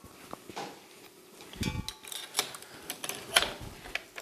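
Light scattered clicks and metallic clinks of a stand mixer's attachments being changed: the wire whisk pulled off the head and another beater pushed onto the drive. A small cluster of clinks with a brief metallic ring comes about two seconds in.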